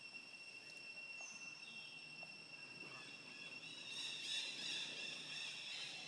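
Insects droning in steady high-pitched tones. About four seconds in, a louder, rougher insect chorus swells in over them.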